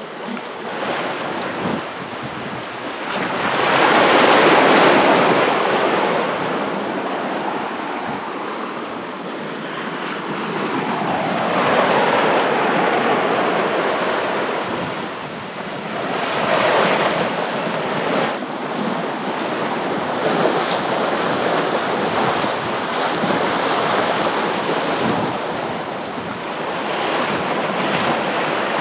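Water rushing and splashing along a sailboat's hull as it sails through choppy water, swelling louder every few seconds as waves pass under the bow, loudest a few seconds in. Wind buffets the microphone throughout.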